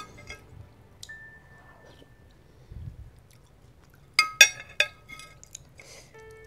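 Quiet chewing of noodle soup, with a metal spoon clinking several times in quick succession against a ceramic plate about four seconds in.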